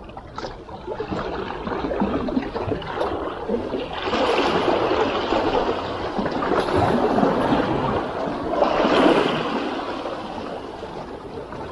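Small sea waves washing and gurgling among shoreline rocks, surging up twice and then ebbing away.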